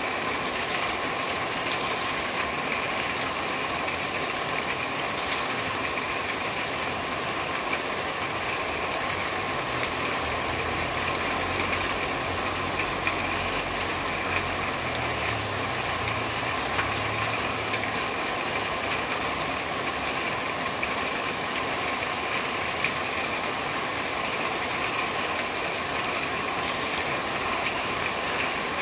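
Steady rain falling on a corrugated metal roof: an even hiss made of countless small drop ticks on the sheeting.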